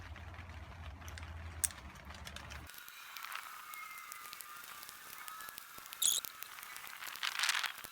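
Faint hand-tool sounds from a wrench tightening cylinder head bolts: a few sharp clicks and a short ratcheting rasp near the end, over a low hum that stops abruptly about a third of the way in.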